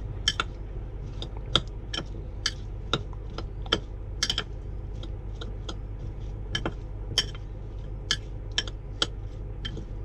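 A metal spoon clinking against a glass dish as cubed potatoes are stirred through with chili sauce: irregular sharp taps, about two a second.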